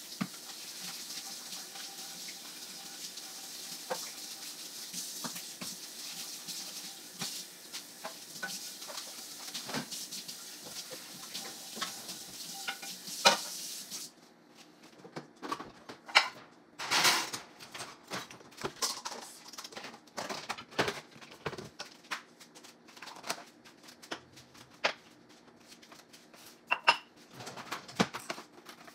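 Dishes being washed at a kitchen sink: tap water running with pans and dishes clinking. About halfway the water stops suddenly, and only scattered clatter of dishes and utensils goes on.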